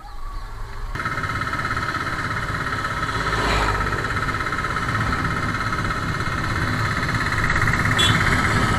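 Motorcycle engine running under way, with road and wind rumble and a steady high buzz on top; the sound jumps up about a second in.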